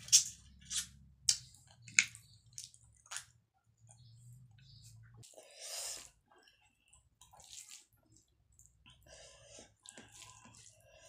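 Close-up wet lip-smacking and chewing of a mouthful of rice and dal eaten by hand: a run of about six sharp, loud smacks in the first three seconds, then softer, scattered mouth sounds.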